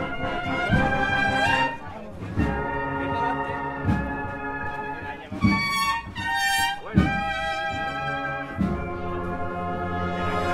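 Brass processional band playing a slow Holy Week march: brass holding chords over a bass drum struck about every one and a half seconds.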